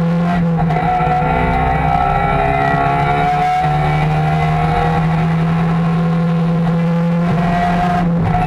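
Trabant 601's two-stroke twin-cylinder engine running hard at high revs, heard from inside the cabin, its note rising over the first few seconds and then holding steady.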